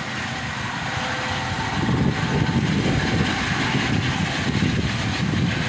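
Helicopter flying overhead, a continuous engine-and-rotor noise with a choppy low rumble that grows louder about two seconds in.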